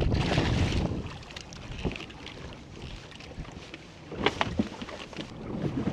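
A hooked smallmouth bass splashing at the water's surface beside a boat, loudest in the first second, over steady wind noise on the microphone. A few sharp knocks follow in the second half.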